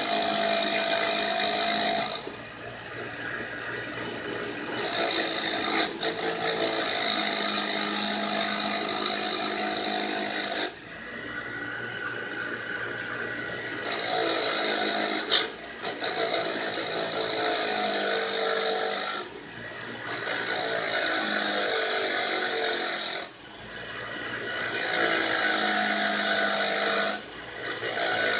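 A bench grinder's wire wheel spinning with a steel brake caliper piston from a Mercedes W123 pressed against it, scouring rust and dirt off its surface. The scratchy brushing comes in spells of a few seconds as the piston is pressed on and eased off, with the grinder motor running on between spells, and there is one sharp tick about halfway through.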